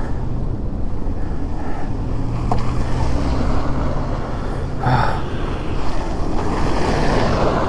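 Wind buffeting the microphone and road noise from a Daymak PitHog Max e-bike riding through snow, with a steady low hum through the middle and a brief rush of noise about five seconds in.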